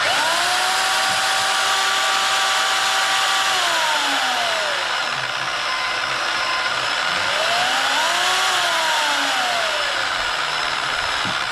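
Bauer 10-amp deep-cut variable-speed portable band saw switched on at top speed for a test cut. It runs with a steady hiss and a motor whine that drops in pitch about four seconds in, rises again near eight seconds and drops once more, then stops.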